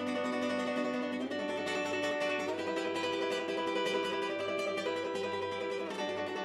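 Background music played on a plucked string instrument, with held chords that change about every second or two.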